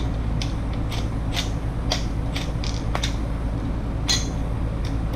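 Scattered light clicks and taps of hand tools and metal engine parts being handled on an engine shortblock, about two a second at irregular spacing, over a steady low hum.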